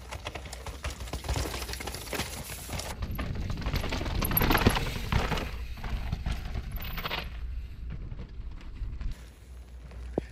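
Downhill mountain bikes clattering over a rocky trail: rapid knocks and rattles of tyres, chain and suspension on stones, loudest as a rider passes about four seconds in, over a low wind rumble on the microphone.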